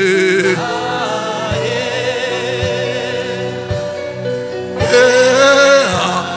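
Gospel music: singing with long, wavering held notes over sustained chords, with a low beat about once a second.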